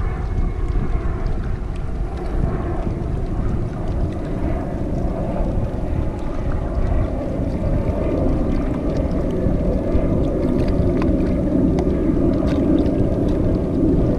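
Wind buffeting the microphone in a steady, uneven rumble, with water lapping at the shore. A steadier low hum swells in about halfway through.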